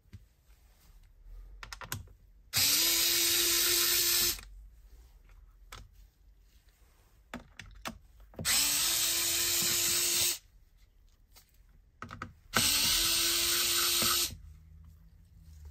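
Electric precision screwdriver running in three bursts of about two seconds each, backing out three small screws from a Bluetooth speaker's battery cover. Each burst is a steady motor whine, with light clicks of handling between them.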